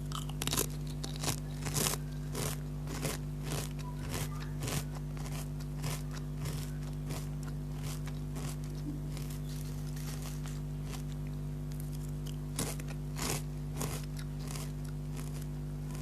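Lay's potato chips being bitten and chewed: crisp crunches about twice a second, thinning out after the first several seconds, with a few more near the end.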